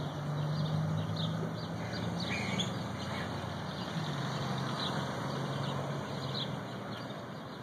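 Vehicle engine running with a steady low hum that fades in and out, while small birds chirp now and then.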